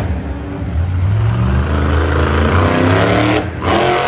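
Bus engine running and revving, a deep rumble whose pitch rises and falls, with a short break about three and a half seconds in.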